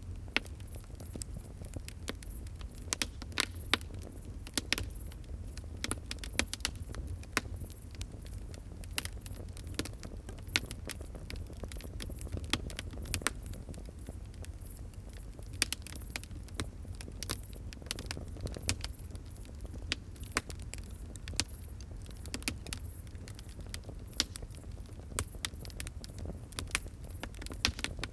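Wood fire crackling, with frequent sharp irregular pops and snaps over a steady low rumble of the flames.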